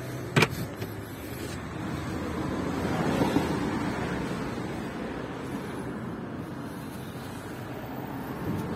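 A single sharp click shortly after the start, then steady vehicle noise that swells about three seconds in and eases off.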